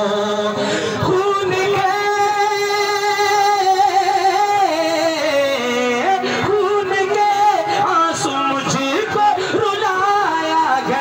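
A voice singing a naat, an Islamic devotional song, holding long notes and bending them with wavering ornaments.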